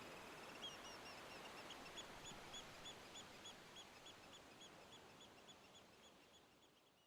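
Faint ambient nature soundscape fading out: a soft, even hiss like distant surf, with a bird calling a quick string of short, high chirps, about three a second, that fade away along with the hiss.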